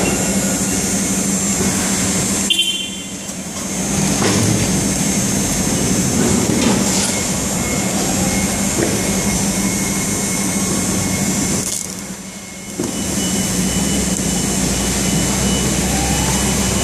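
Steady loud hum and rumble of warehouse conveyor machinery running, with a constant low drone under a broad noise wash that drops away briefly twice.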